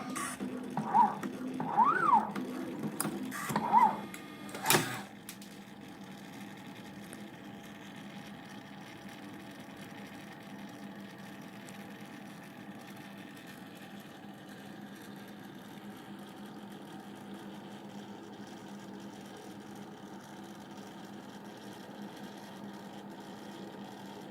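Desktop CNC wire-bending machine working steel wire: its motors whine in short runs that rise and fall in pitch, with clicks, ending about five seconds in with a sharp click. After that there is a steady, fainter hum.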